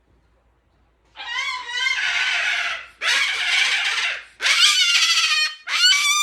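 Cockatoo screeching: four long, loud, harsh screams in a row, starting about a second in.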